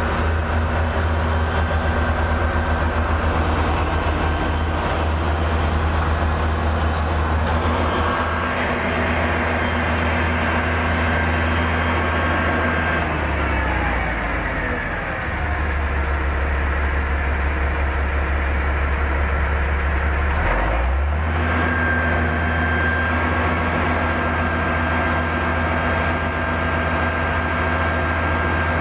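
Heavy diesel engine of earthmoving equipment running steadily with a deep drone. About halfway through its note falls as the revs drop, and a few seconds later it dips briefly before settling back.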